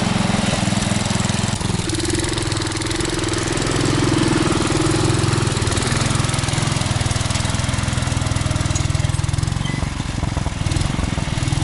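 Small engine of an old Sears garden tractor running steadily, with an extra higher tone from about two to five seconds in.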